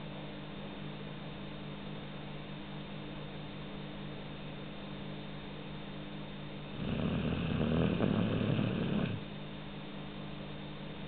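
A sleeping puppy snoring: a single long snore starts about seven seconds in and lasts about two seconds. The rest of the time there is only a steady low hum, a long pause between breaths that is typical of this puppy's sleep.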